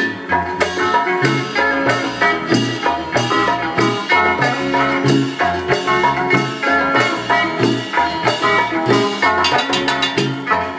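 Instrumental passage of a Latin dance song with a stepping bass line, percussion and melody instruments, without singing.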